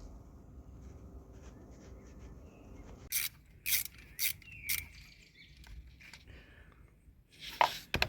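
Hand tools working on metal: four sharp clicks about half a second apart, a short rasp, then two louder clacks near the end.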